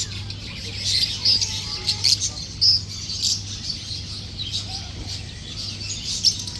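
Many small caged birds chirping and tweeting at once: a dense, overlapping chatter of short, high chirps. A steady low hum runs underneath.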